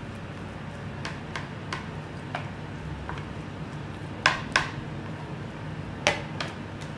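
Silicone spatula scraping and tapping against a stainless steel tray as a thick tomato filling is worked and scooped up: scattered light clicks, with two sharper knocks about four and a half seconds in and another about six seconds in, over a steady low hum.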